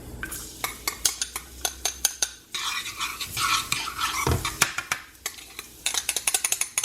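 A utensil stirring garlic in a frying pan: repeated clicks and scrapes of the utensil on the pan, with some sizzling in the middle.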